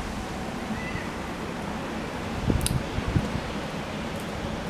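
Low steady rumble of an M28 tram approaching slowly on curved track, with a few heavy low thumps about halfway through.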